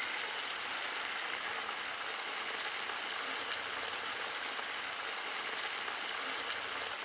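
Chicken leg pieces deep-frying in hot oil in a large wok, still cooking through: a steady, even sizzle of bubbling oil.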